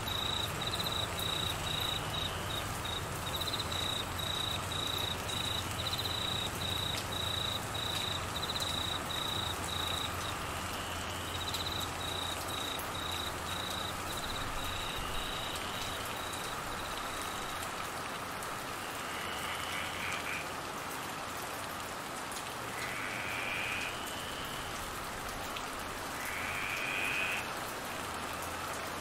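Steady monsoon rain hissing on trees and grass, with a cricket chirping in an even run of high pulses that stops a little past halfway. Later, three short calls come a few seconds apart.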